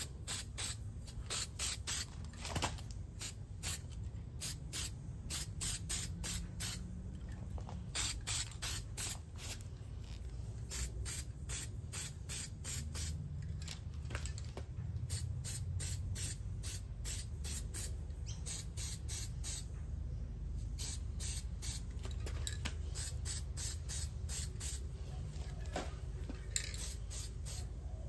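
Trigger spray bottle squirting over and over: quick runs of short hissing sprays, a few a second, with brief pauses between runs. A low steady rumble runs underneath.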